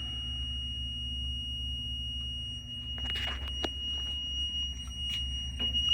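A steady high-pitched electronic alarm tone sounds over the low hum of a sump pump running. The pump is draining flood water after its stuck vertical float switch was knocked free. A few faint clicks come about halfway through.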